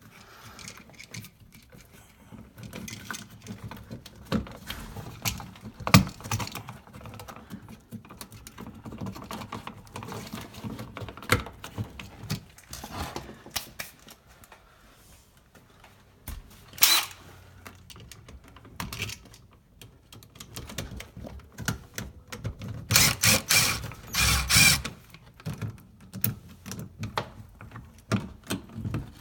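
A GFCI receptacle and its wires being pushed into a small metal electrical box: scattered clicks, knocks and rustles of plastic and wire. About 23 seconds in, a cordless drill drives the receptacle's mounting screws in two short runs.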